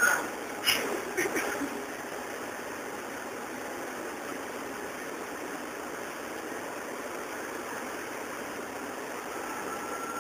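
Steady rushing noise of brickworks machinery running, with a few sharp knocks in the first second and a half.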